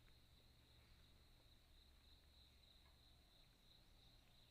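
Near silence, with a faint, steady high-pitched drone of forest insects.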